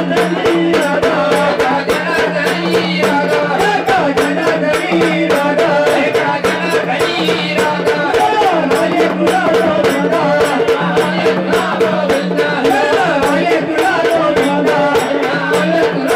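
Marathi Waghya folk song: voices singing over a steady held drone and a fast, even rattling percussion beat.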